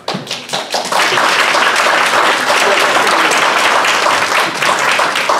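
Audience applauding, swelling to full strength within the first second and easing a little near the end.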